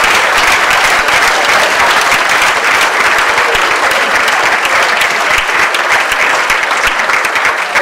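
Audience applauding: many people clapping steadily and loudly.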